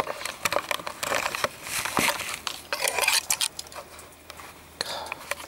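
Handling noise from a camera being taken off its tripod and carried: irregular clicks, knocks and rustling close to the microphone.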